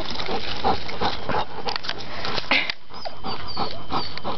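A dog pawing and nosing at a rope lacrosse net to reach a tennis ball tangled in it: scraping and rustling of net and grass, with a few short whines in the second half.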